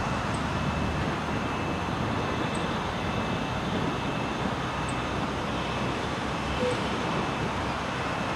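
Steady road-traffic noise, an even rush with no single vehicle standing out.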